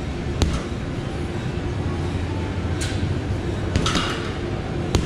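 Boxing gloves striking a hanging heavy bag: a sharp smack about half a second in and another near the end, with two short hissing sounds between, over a steady low hum.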